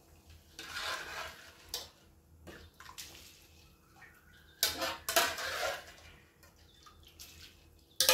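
Soaked rice being tipped from a metal pot into a pot of hot spiced water, in several splashing pours, the loudest about halfway through. The metal pots clink and knock against each other in between.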